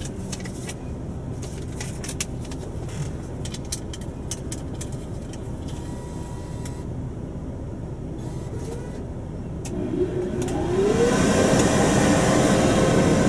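A car idling with a few scattered clicks. About ten seconds in, the stand-alone car wash dryer's blower starts up, its whine rising in pitch as the fan spins up, then settles into a loud, steady rush of air.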